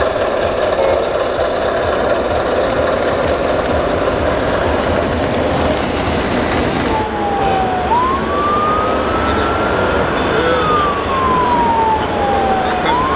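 Hall crowd noise, joined about halfway through by a wailing siren that rises, falls slowly and rises again. The siren comes from a model police car's sound module.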